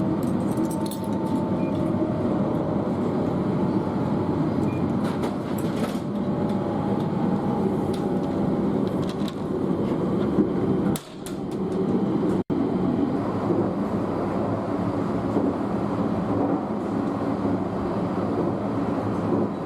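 Steady rumble of a moving train heard from inside a carriage, with scattered light clicks and knocks.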